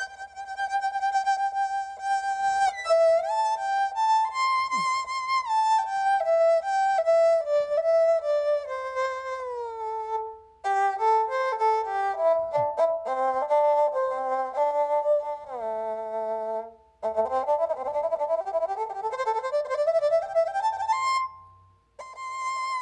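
Erhu-imitating keyboard sound played as a melody: a long held note, then phrases that slide and step between notes, with a lower second line briefly joining in the middle and a quick rising run of notes near the end.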